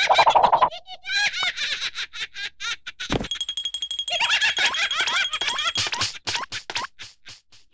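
Cartoon characters giggling and chattering in rapid, squeaky high-pitched voices, mixed with bouncy boing sound effects. A sharp hit comes about three seconds in, followed by a steady high whistle-like tone lasting a couple of seconds.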